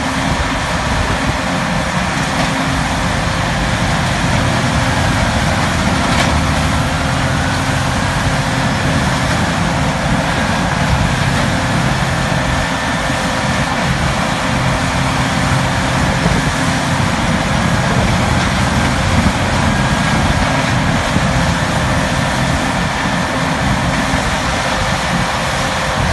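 Morbark 6400XT Wood Hog horizontal grinder running under load, its CAT C27 diesel engine and grinding drum going steadily as it grinds brush and compost. A faint high whine over the din dips briefly in pitch twice.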